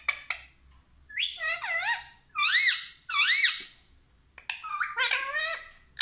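Rose-ringed parakeet (Indian ringneck) giving a string of loud squawking calls that wobble up and down in pitch, with short gaps between them. A few quick clicks come at the very start.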